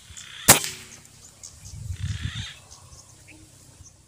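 A single shot from a Predator Tactical CNC PCP air rifle: one sharp crack about half a second in.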